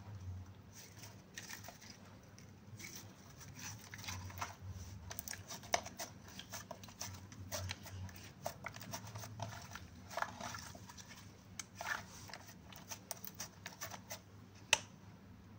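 Hands stretching, kneading and pressing sticky clear slime mixed with eyeshadow, making irregular wet clicks, crackles and squelches. A few sharper pops stand out, the loudest near the end.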